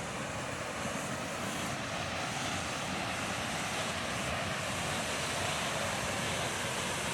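Waterfall: a steady, even rushing of falling water.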